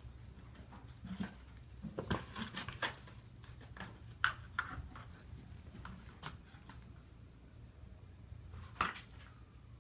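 Kitten moving about inside a cardboard box: irregular scratching and rustling on the cardboard with a few sharper clicks, busiest about two to three seconds in and again near the end, over a low steady hum.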